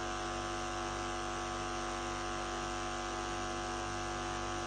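Steady electrical hum and buzz with several held tones, unchanging in level.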